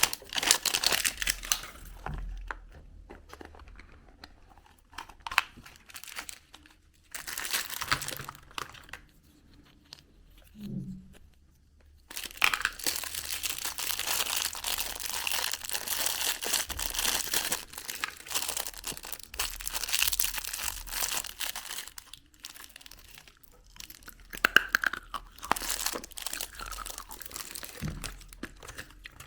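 Candy wrappers being crinkled and torn open by hand, in several spells of crackly rustling. The longest spell is in the middle, with shorter ones near the start and the end.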